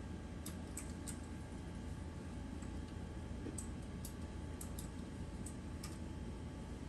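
Faint, irregular light clicks and ticks from a plastic crochet hook working single crochet stitches through yarn, over a low steady background hum.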